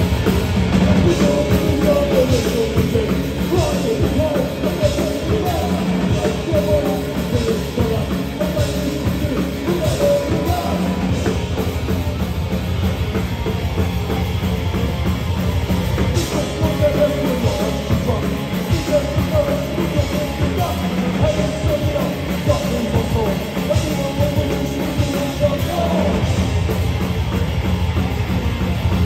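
Rock band playing a punk-rock song live, with a drum kit beating under the band.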